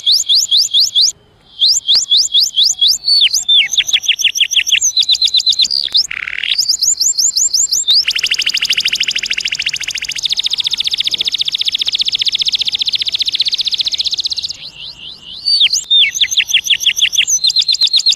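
Domestic canary singing a long song of rapid repeated trills: runs of fast rising sweeps, then a long rolling trill through the middle, with short breaks about a second in and near the end. It is the kind of song played to stimulate hens and to teach young canaries.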